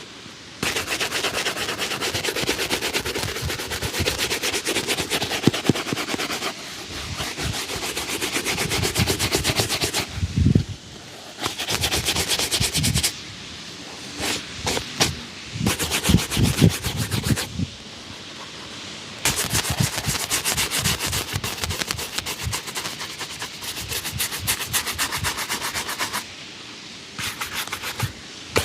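Shoe-shine brush scrubbing a shoe in fast back-and-forth strokes, in runs of several seconds with short breaks between them and a few duller knocks in the pauses.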